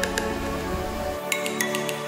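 Background music: sustained tones, with light chiming notes in the second half.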